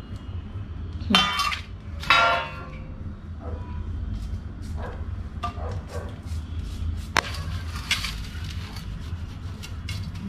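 Stainless steel plates clanking, ringing out twice about a second apart, then a string of lighter clinks and taps as the plates are handled, over a steady low hum.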